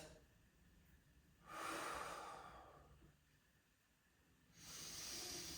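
A person breathing audibly and slowly: one faint breath about a second and a half in, lasting about a second and a half, and another starting near the end.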